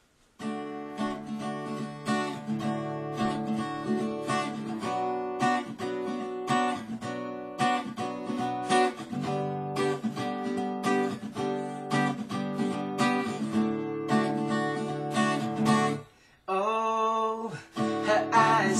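Acoustic guitar strumming a steady chord pattern, with a short break about sixteen seconds in before the playing picks up again.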